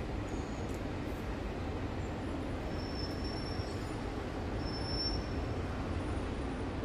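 Steady low rumble of distant city traffic, with a couple of faint, brief high-pitched tones about three and five seconds in.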